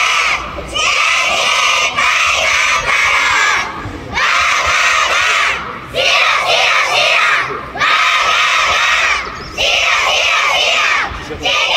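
A large group of schoolchildren shouting a cheer together, in loud phrases of a second or two with short breaks between, about six in all.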